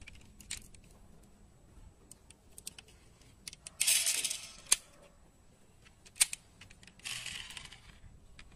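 A die-cast Honda Civic Type R model car, Maisto 1:40, being handled: scattered small clicks and taps from its body and opening doors, two sharp clicks near the middle, and two short rubbing noises of fingers against it, about four and seven seconds in.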